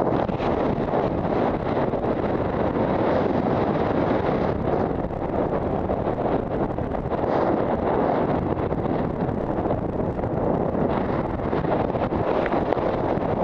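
Steady rush of wind over the microphone during parachute canopy flight.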